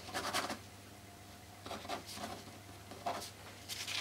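A pen scratching on paper in several short strokes as a signature is written, over a low steady hum.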